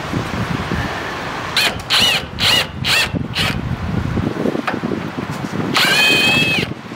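Cordless impact wrench spinning in about five short trigger pulls, each a quick rising and falling whine, then one longer spin near the end, running a 22 mm nut off a front lower shock bolt.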